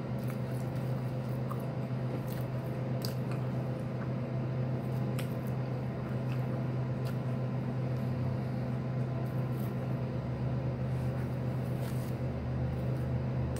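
Close-up chewing and biting of a sandwich on a soft bread roll, with small wet mouth clicks scattered throughout, over a steady low hum.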